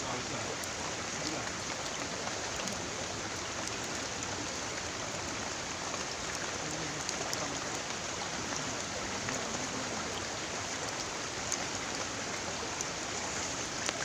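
Steady rush of water: an even, unbroken hiss of flowing or falling water.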